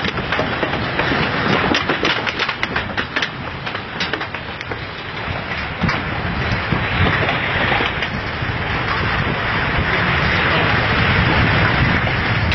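Earthquake rumble with structures and trees breaking: a quick run of sharp cracks and snaps in the first few seconds, then a steady rushing rumble that swells louder toward the end.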